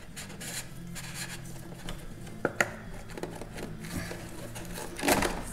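Hand handling of a Jeep Gladiator's top-mounted oil filter housing cap and filter as the old filter is worked out of the cap: light rubbing and scattered small clicks, with a sharp click about two and a half seconds in. A steady low hum runs underneath.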